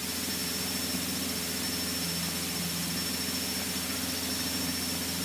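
Cessna 152's four-cylinder Lycoming engine and propeller in cruise, heard inside the cabin: a steady, even drone with a faint steady high whine over it.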